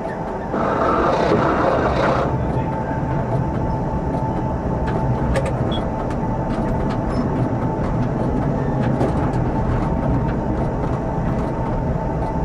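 Tram running along the rails, heard from inside the driver's cab: a steady low rumble with a thin steady whine over it, and a hissing rush from about half a second in to about two seconds in.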